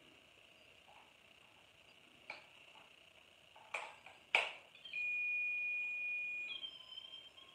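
A handheld Mel meter (EMF and temperature meter) being switched on: three sharp button clicks, then a long steady electronic beep, then a higher, slightly wavering tone near the end.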